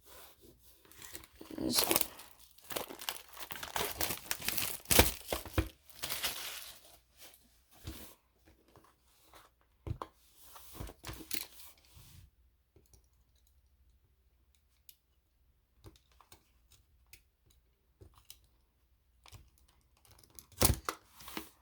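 Plastic shrink-wrap being torn and crinkled off a sealed trading card hobby box, in a run of tearing strokes for about the first twelve seconds, then only scattered light clicks of handling.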